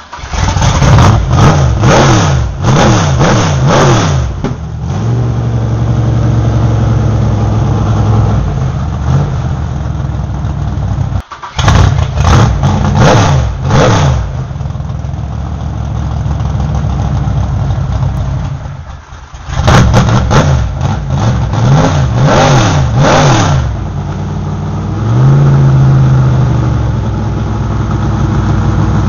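Alcohol-burning Chevy 350 small-block V8 in a modified dirt stock car, loud, firing up at the start and then revved in three bursts of quick throttle blips, idling steadily between them. Just before the second and third bursts the engine briefly sags, nearly dying, before the revs pick it up.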